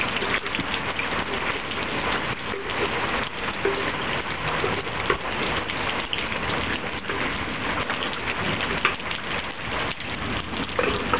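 Heavy rain falling steadily, a dense patter of drops on the surfaces around.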